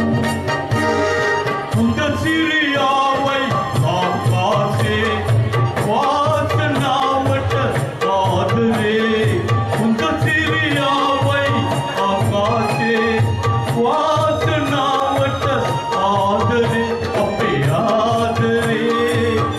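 Male vocalist singing live into a microphone with a small band: acoustic guitar, keyboard and hand drums keeping a steady beat. The voice comes in about two seconds in over the instruments.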